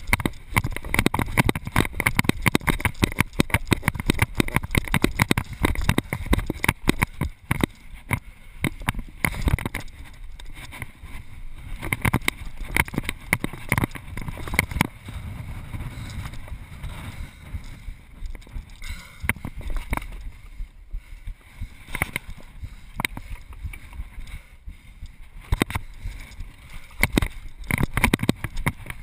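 Close, irregular knocks, scuffs and rubbing from someone climbing and scrambling over rooftops, picked up by a body-mounted GoPro's own muffled microphone, over a steady low rumble. The knocks are densest at first, thin out in the middle and pick up again near the end.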